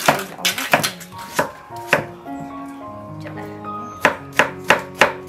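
Cleaver chopping a peeled bamboo shoot on a wooden chopping block: sharp knocks of the blade striking the board. A run of chops is followed by a pause of over a second, then quicker chops near the end.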